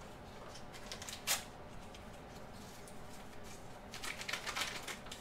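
Paper packets of powdered pectin being torn open and handled: faint paper rustling, with one short sharper rustle about a second in and a cluster of crinkles near the end.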